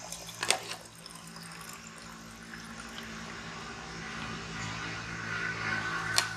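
A long slotted metal ladle knocking and scraping against an aluminium pot while scooping biryani rice onto a banana leaf: two sharp knocks, one about half a second in and one near the end. Underneath runs a steady rushing noise that swells a little toward the end.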